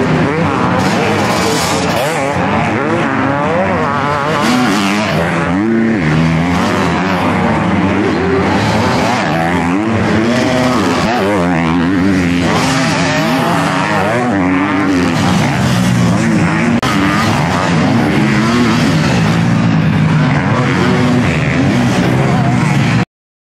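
Several 250cc motocross bikes racing, their engines revving up and down over and under one another. The sound cuts off suddenly near the end.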